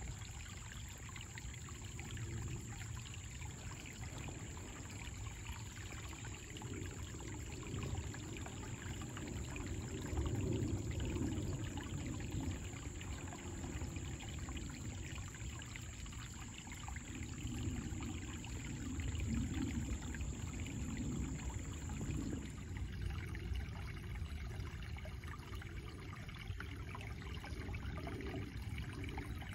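Creek water flowing and trickling over rocks, a steady rush that swells gently now and then.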